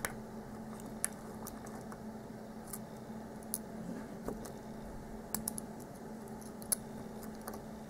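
Sparse small metallic clicks and taps as a padlock is handled and taken apart, with a faint steady hum underneath.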